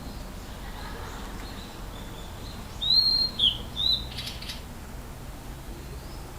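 A blue-and-white flycatcher singing: a single short phrase of clear, loud whistled notes a little before the middle, pitched high and sliding up and down, ending in a brief harsh note, with a few faint notes before and after.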